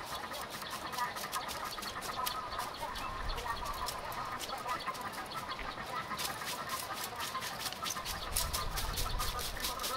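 Metal rake tines scratching as they drag cut grass clippings, in short irregular strokes, with birds calling in the background.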